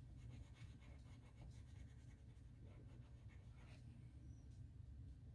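Faint pencil strokes scratching on paper as a dark patch is shaded in, over a low steady background hum.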